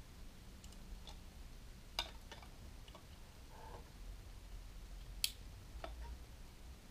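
Scattered small clicks and knocks from a plastic cordless LED work light being handled and its switch pressed. The two sharpest clicks come about two seconds in and just after five seconds.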